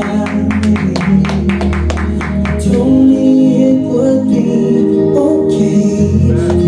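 Church worship song playing loudly: singing over instrumental backing, with a steady beat through the first half that gives way to long held notes.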